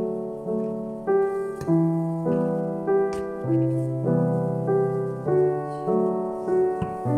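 Background piano music: a gentle, slow piano tune with notes and chords changing about every half second to second.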